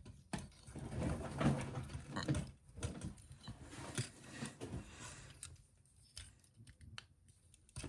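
Hard plastic action-figure parts being handled and fitted together: irregular light clicks and scraping as a gun accessory is pressed onto the figure, the handling dying down to a few faint ticks after about five seconds.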